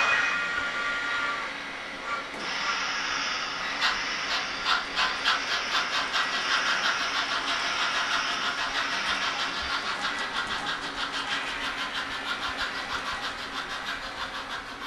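A model steam locomotive's sound decoder giving a short multi-tone steam whistle, then steady, evenly spaced exhaust chuffs as the engine runs.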